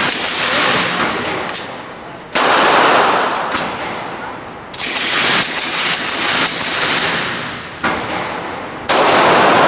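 Fully automatic gunfire in long strings: a loud burst begins suddenly about two and a half seconds in, again near five seconds and again near nine, each trailing off over a second or two.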